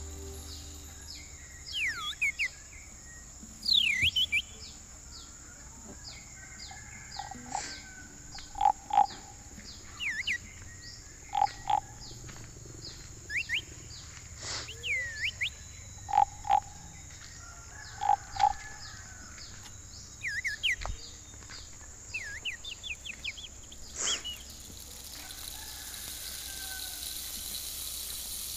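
Tropical forest wildlife: a steady high insect drone, with many quick downward-sweeping chirps and short paired low calls repeating every couple of seconds. A soft hiss builds near the end.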